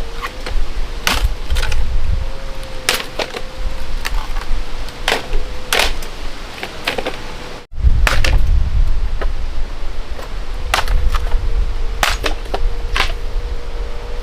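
A series of sharp, irregular knocks, roughly one a second, over a low rumble, with a brief dropout a little past halfway.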